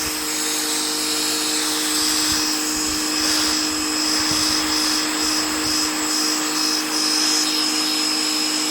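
Ryobi 1900 PSI electric pressure washer running under load, its motor and pump giving a steady hum with a high whine over the hiss of the water jet spraying a floor.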